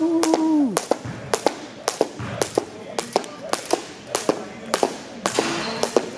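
Jump rope skipping on a hard gym floor: the rope slaps the floor and the shoes land in a steady rhythm of sharp taps, about two to three a second. A short pitched call sounds in the first second and falls off at its end.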